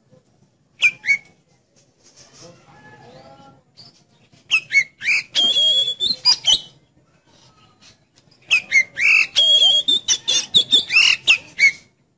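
Oriental magpie-robin singing: a short whistled phrase about a second in, soft twittering after it, then two long loud bursts of rapid, varied whistles with quick up-and-down glides and a held high note, the second starting a little past the middle.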